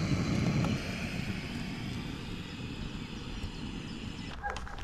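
Jetboil backpacking gas stove burning on its Jetpower canister: the steady hissing roar of the burner, which stops near the end.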